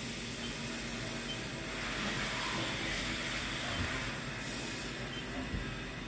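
Steady hissing machine noise of a Haas VF4 CNC vertical mill running a touch-probe cycle on a part in its vise, with a faint knock or two near the end.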